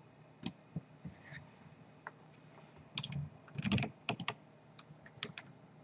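Irregular clicks from a computer keyboard and mouse, with a quick run of several clicks from about three and a half to four and a half seconds in.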